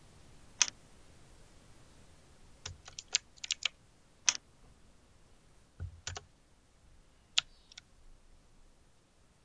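Computer keyboard typing: scattered single keystrokes and a quick run of them, about a dozen sharp clicks with pauses in between.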